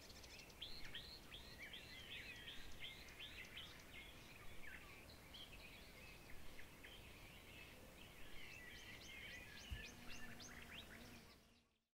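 Faint birdsong: many short chirps and twitters from several birds, fading out at the very end.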